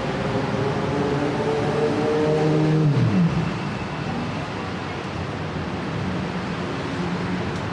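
Busy city-street traffic: steady road noise, with one vehicle's engine growing louder and passing about three seconds in, its pitch dropping as it goes by.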